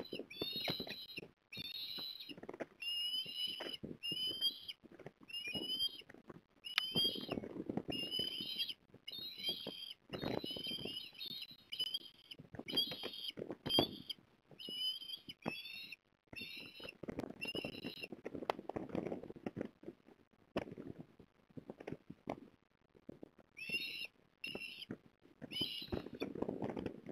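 Osprey giving a long run of short, high, whistled chirps, one or two a second, with a pause of a few seconds about three quarters of the way through before the calls start again. An uneven low rumble runs underneath.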